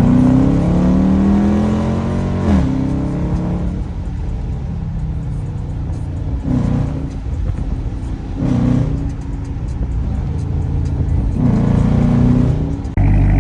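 Dodge Charger R/T's HEMI V8 revving: a long rev that climbs and then drops back about two and a half seconds in, followed by three short throttle blips over the idle. Music cuts in near the end.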